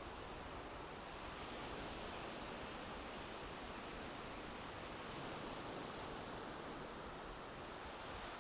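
A steady rushing noise that swells slightly and eases.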